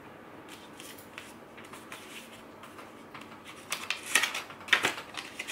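A small paper care booklet being handled and opened by hand: soft paper rustles, with a few louder crisp rustles around four to five seconds in.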